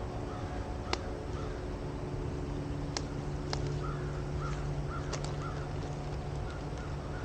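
A bird calling about six times in a short series in the middle, over a steady low hum, with a few sharp clicks scattered through.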